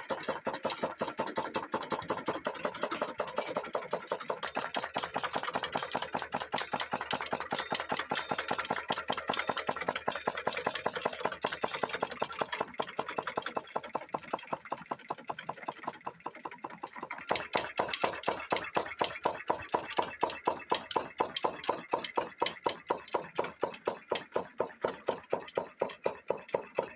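Home-built alpha-type hot air Stirling engine, its diaphragm pistons driven by a solid-fuel fire, running with a rapid, regular beat; the puffing of air at each stroke comes from internal leaks. About two-thirds of the way through, a low rumble under it drops away and the beat gets louder.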